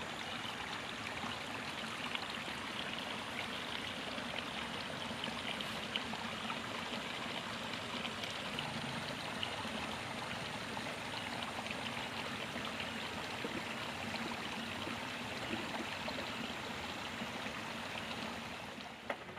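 Steady rush of flowing water in a ditch, dipping slightly near the end.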